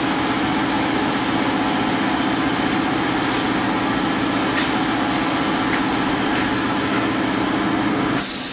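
A steady mechanical drone with a constant low hum, cutting off abruptly near the end with a brief burst of hiss.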